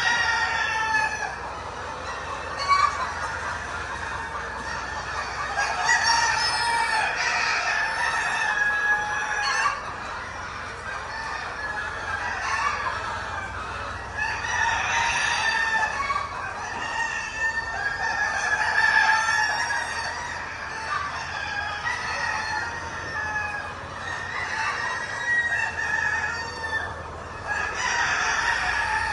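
A large flock of caged laying hens clucking and calling over one another without pause.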